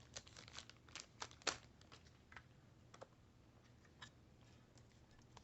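Faint, scattered clicks and light rustles from handling a trading card and a magnetic card holder, with the sharpest click about one and a half seconds in.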